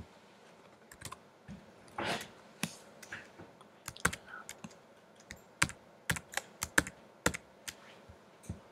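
Typing on a computer keyboard: irregular keystroke clicks, coming in a quicker flurry in the second half. A brief soft rustle about two seconds in.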